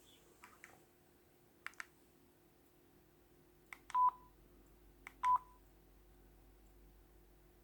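Mobile phone handled after its ringtone stops: a few quick button clicks, then two short beeps about a second apart, each just after a click.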